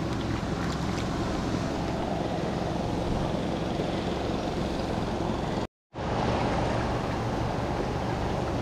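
Steady rush of a river flowing over rocks, dropping out briefly about six seconds in.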